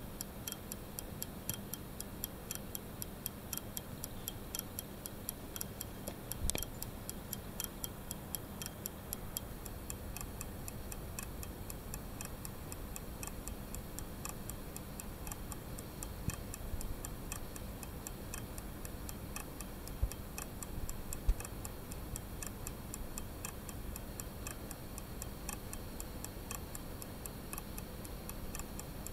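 Mechanical watch movement with a duplex escapement ticking in rapid, even clicks as the escape wheel's doubled teeth lock and impulse the hand-made balance. It clicks reliably despite a slight wobble in the balance. A couple of louder knocks come about two-thirds of the way through.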